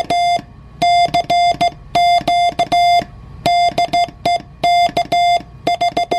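Morse code sidetone from an HB-1B QRP CW transceiver, heard through a speaker, keyed by hand on a Russian military straight key. A steady tone switches on and off in irregular dits and dahs, with a click at each key-down and key-up.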